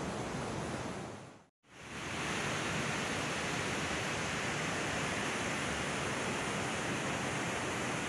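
Steady, even outdoor hiss with no distinct events, cutting out briefly about a second and a half in, then running on evenly.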